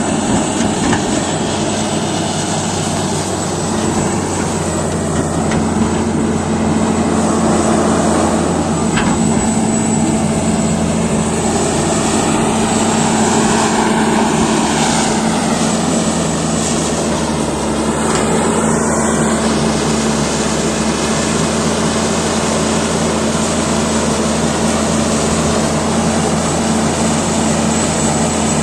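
Caterpillar D8T bulldozer's C15 diesel engine running steadily while working, a loud continuous drone. In the middle a higher tone rises and falls away a couple of times.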